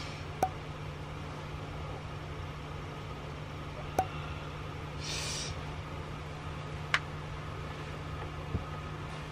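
Quiet room tone with a steady low hum. Four sharp clicks come at uneven intervals, and a brief rustle of bedding comes about five seconds in.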